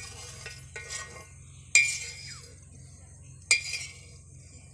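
A metal utensil knocking against a metal cooking pot: four sharp clinks at uneven spacing, each ringing briefly. The loudest comes a little under two seconds in.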